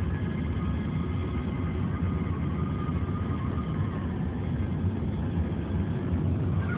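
Car driving along a road, heard from inside the cabin: steady engine and tyre noise.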